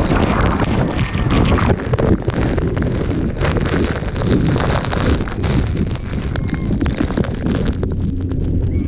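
Wind buffeting the microphone of a moving tour boat, with a low engine drone underneath that settles into a steady hum near the end.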